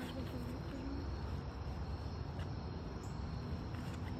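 Outdoor ambience with a steady insect chirring, over a low rumble of wind on the microphone. A faint voice trails off in the first second.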